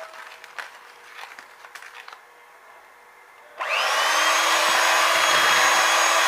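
A few light clicks and taps, then, a little past halfway, an electric hand mixer switches on. Its whine rises quickly in pitch and settles into a loud, steady run as it beats sugar into ghee for a cake batter.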